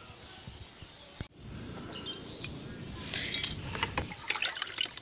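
Water poured from a container onto garden soil, a splashing rush for about two and a half seconds that stops about four seconds in.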